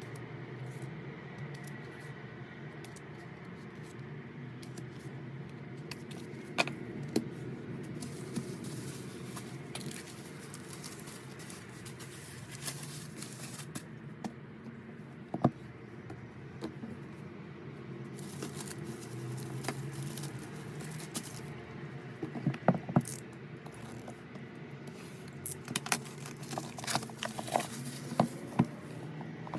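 Album packaging being handled and opened: scattered clicks, taps and short crinkling rustles, busier in the last third, over a steady low hum.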